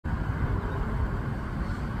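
Steady low rumbling background noise, with no clear calls from the hen or chicks.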